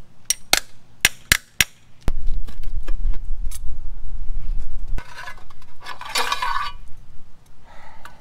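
Sharp metallic clinks of hand tools and bolts on the V8's valve cover, five in the first two seconds. Then a low rumble for about three seconds, and a longer scraping rush about six seconds in as the valve cover is worked loose and lifted off the cylinder head.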